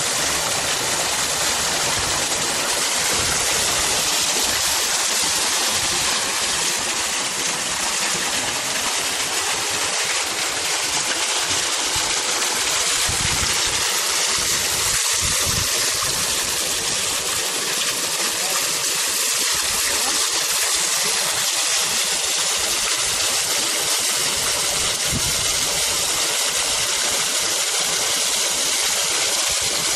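Steady rushing hiss of flowing water, from clarified sewage water being pumped up onto the media bed of a soil biotechnology treatment plant, with an uneven low rumble underneath.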